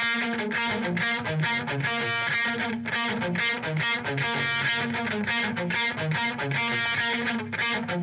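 Distorted electric guitar through a Marshall-style amp, playing a rock riff with quick, evenly repeated picked notes.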